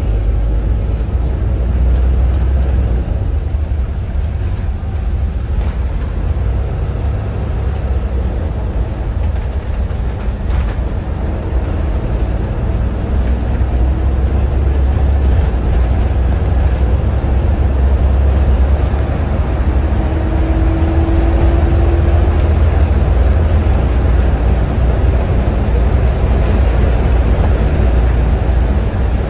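Volvo B7RLE single-deck bus under way, heard from inside the cabin: the six-cylinder diesel's steady low rumble under even road noise, growing a little louder about halfway through, with a short faint whine about two-thirds of the way in.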